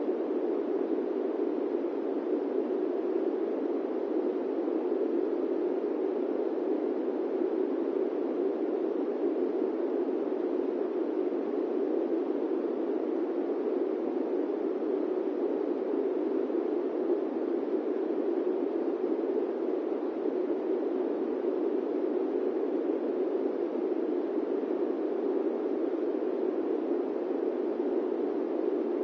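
Steady airplane-cabin white noise, an even drone with no changes or events, strongest in the low-middle range and lacking any deep rumble.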